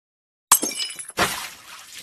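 Glass-breaking sound effect: a sharp crash with high ringing tinkles about half a second in, then a second shattering burst that trails off.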